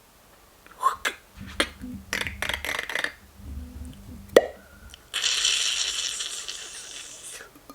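A string of short sound effects: a run of clicks and pops, a single sharp pop about four seconds in, then a steady hiss lasting about two seconds.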